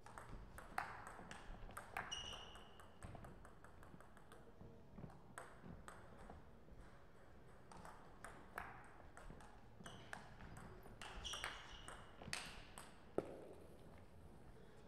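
Table tennis ball clicking sharply off the paddles and bouncing on the table in quick runs of hits during rallies, with pauses between them. Two short high squeaks are heard in the course of the play.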